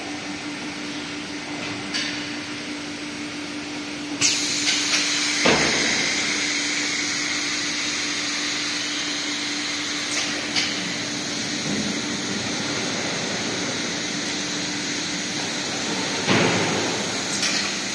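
Press-line machinery humming with a steady low tone, then a sudden air hiss about four seconds in that keeps going as the vacuum suction lifter grips and carries a laminated board. A few sharp clunks of metal handling gear, the loudest near the end.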